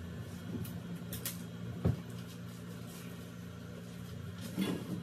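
Footsteps and light knocks on a black metal bed frame, with one dull thump about two seconds in and a few more knocks near the end, over a steady low hum.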